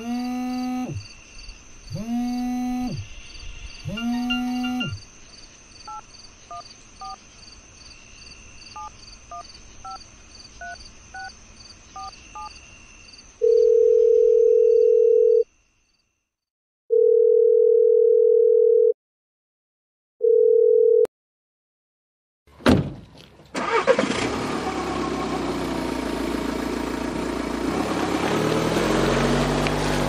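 A sequence of electronic tones: four repeated pitched tones about two seconds apart, each sliding down in pitch at its end, then a run of quiet scattered beeps, then a loud steady beep tone held in three long pulses with gaps of silence. After a click, a loud rushing noise with a low hum takes over for the last several seconds.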